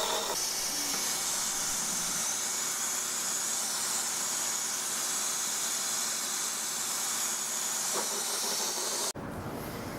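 Taig benchtop lathe running as a steel-cutting tool bit turns a hickory blank: a steady hiss of the cut over the machine, stopping suddenly about nine seconds in.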